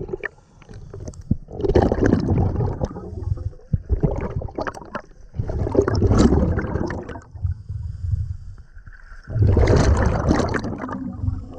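Scuba regulator breathing heard underwater: three loud bursts of exhaled bubbles, roughly every four seconds, with quieter stretches between.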